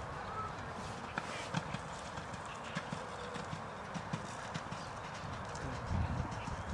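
Hoofbeats of a horse moving over sand arena footing, a run of soft, irregular thuds, with a low rumble that grows louder near the end.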